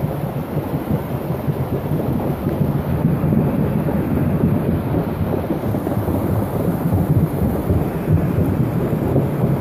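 Thunderstorm with rain: a steady, loud low rumble with no single clap standing out, rising slightly a couple of seconds in.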